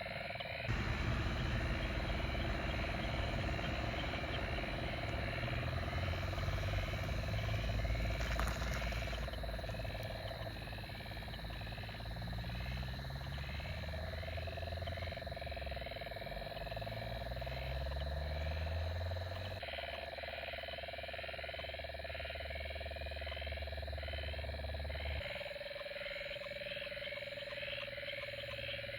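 A night chorus of frogs and insects, with steady repeated chirping and low calls that glide in pitch. Over the first ten seconds or so there is a louder, long low rumble of distant thunder from the fading storm.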